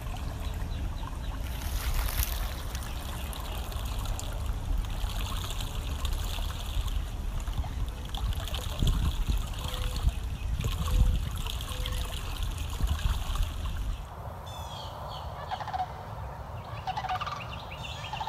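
Water sloshing as a tiger lies and shifts in her pool, over a steady low outdoor rumble, with louder irregular splashes in the middle. In the last few seconds the rumble stops and birds chirp a few times.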